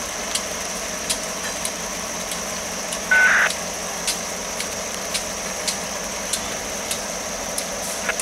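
Buffalo & Pittsburgh EMD GP38-2 diesel locomotives rolling slowly past at low throttle, with a steady engine hum and light clicks about every half second to a second. A short, sharp squeal about three seconds in is the loudest moment, over a steady high-pitched drone throughout.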